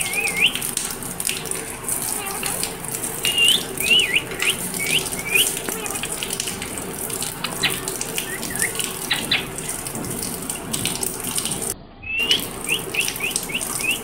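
Rose-ringed parakeet giving short squeaky whistled chirps in quick runs of three to five notes while being bathed, over a steady splash of running water.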